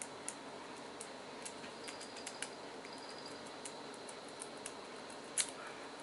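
Lock pick clicking and scraping over the pin stack of a solid brass padlock under tension: light irregular ticks, with one sharper click about five and a half seconds in, over a steady hiss. The lock is not giving, and the picker thinks a pin may be broken.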